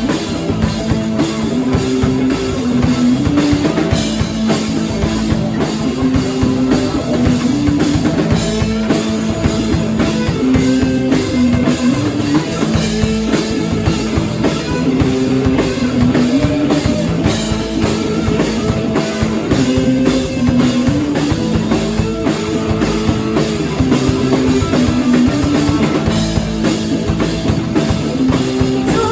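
Live rock band playing an instrumental passage: a drum kit keeping a steady beat under guitar and a repeating melodic riff.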